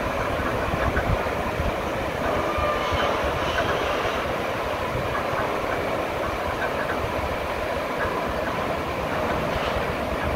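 Steady rushing of river water pouring through and under a movable dam's partly closed gates, with a heavy low rumble.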